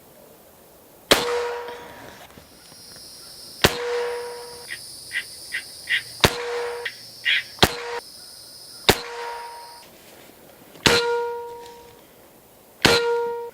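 Seven suppressed shots from a Walther MaximaThor .25 air rifle fitted with a Neil Clague moderator, one every one to two seconds. Each is a sharp crack followed by a short ringing tone, and the reports are subdued by the moderator.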